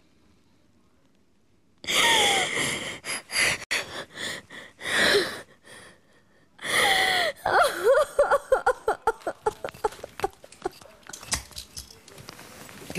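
A woman crying hysterically. After a couple of seconds of quiet come loud, wheezing, gasping sobs, which turn into wavering wailing cries that rise and fall.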